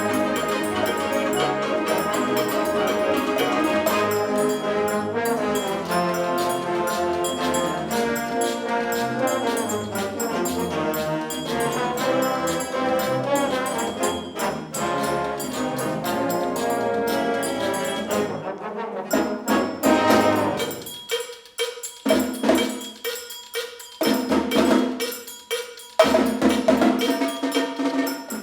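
High school wind ensemble playing a mambo arrangement of a Christmas tune, with trumpets, trombones and percussion. About twenty seconds in, the full sustained sound gives way to short, punchy ensemble hits with brief gaps between them.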